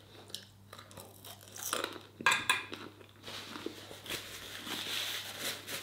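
A person chewing a mouthful of chips with small crunches, then from about three seconds in a paper tissue rustling and crumpling as it is handled.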